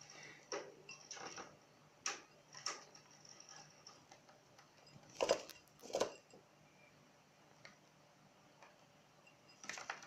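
Cockatiel bathing in a shallow bowl of water: a few short bursts of splashing and wing fluttering, the two loudest about five and six seconds in, and more wing flapping near the end.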